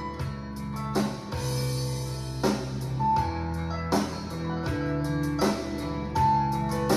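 Instrumental break in a country song: guitars and a drum kit playing with a steady beat, no vocals.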